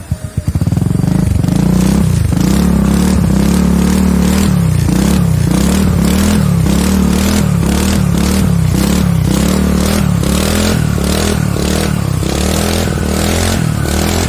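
Honda Navi 110's single-cylinder four-stroke engine through an aftermarket full-system exhaust, loud and rough, its pitch rising and falling in quick repeated throttle blips about twice a second. It comes in about half a second in.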